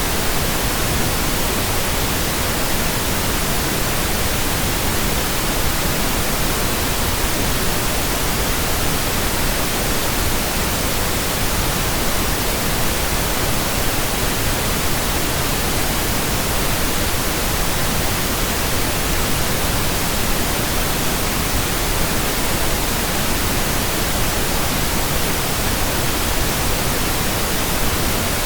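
Steady synthesized pink noise: an even hiss like a radio tuned between stations, unchanging in level and pitch.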